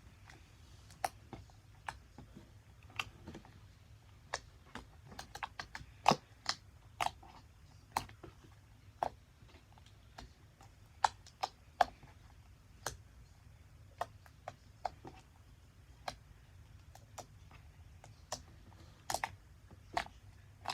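Fluffy slime being pressed and poked, making irregular sticky pops and clicks, roughly one every half second to a second.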